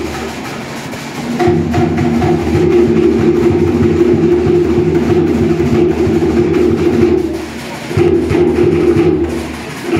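Cook Islands drum-dance music: a fast, steady beat on wooden drums over a deep drum, with short breaks in the beat.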